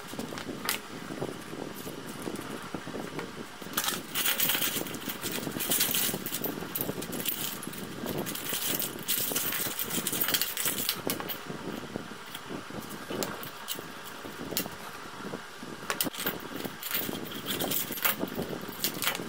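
A brush scrubbing oily motorcycle bolts and springs in a metal basin, with wet scraping and the parts clinking against each other and the basin in irregular bursts.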